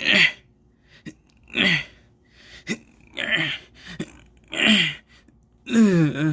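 A person's voice making exhausted, pained gasps and groans, with no words: four main breathy cries, each sliding down in pitch, and a few small clicks between them.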